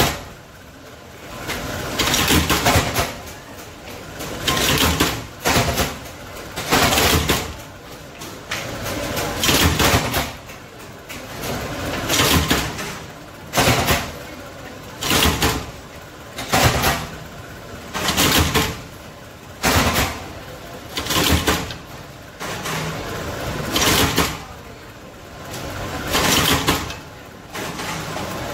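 Flywheel-driven clicker press cutting slipper soles from a red sheet, its cutting stroke coming down again and again, about every one and a half to two seconds, over the steady running of its motor and flywheel.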